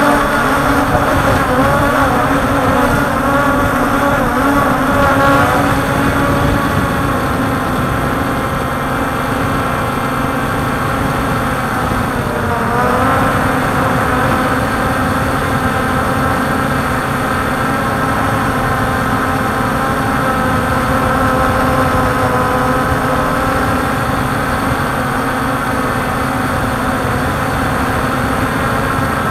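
Multirotor drone's motors and propellers whining steadily, several pitches wavering together as the throttle changes, with a brief dip and rise in pitch about twelve seconds in.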